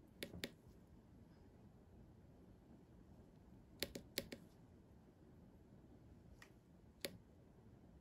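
Small tactile push button on a breadboard clicking under a fingertip: a quick pair of clicks at the start, another pair about four seconds in, then two single clicks further on, over faint room hiss.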